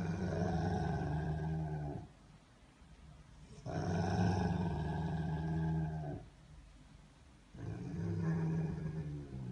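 A Rottweiler making long, low humming grumbles while it is stroked. There are three of them, each about two seconds long, with short pauses between.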